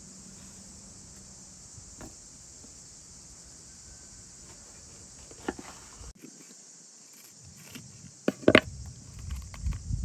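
A knife cutting green bell peppers on a wooden cutting board: a crisp cut about five and a half seconds in, then a cluster of louder cuts and knocks on the board after eight seconds. A steady high insect hiss lies underneath.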